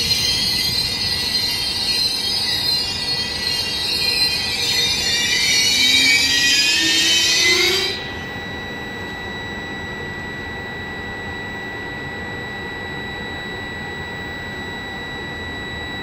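Intercity train's brakes squealing in many wavering high tones as it slows, with a lower tone rising beneath, all cutting off suddenly about halfway through as the train comes to a stop. A steady high electric whine and hum from the standing train remain.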